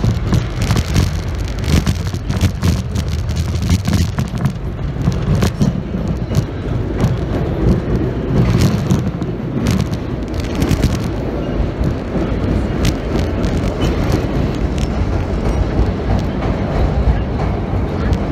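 Vintage R1/R9-type subway cars running through a tunnel: a steady low rumble of wheels on rail and running gear, with frequent sharp clicks and clatter that thin out after about ten seconds.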